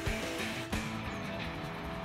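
Background music with steady held notes and a low beat; a hiss under it cuts off about a third of the way in.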